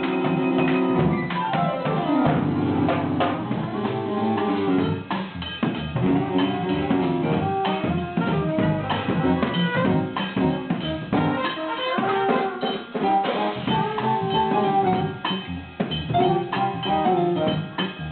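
Live band jamming: a drum kit played with snare, kick and rimshots under sustained pitched instruments, including a quick falling run of notes about two seconds in.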